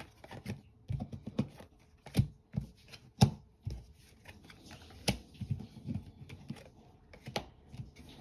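Tarot cards being shuffled in the hands and dealt onto a table: an irregular run of light clicks and taps of card on card, with the sharpest snaps about two and three seconds in.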